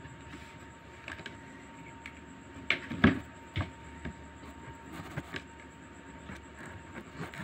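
Scattered knocks and taps from handling drawing things on a clipboard: a marker is put down and hands move off the paper. The loudest knock comes about three seconds in, with lighter taps before and after.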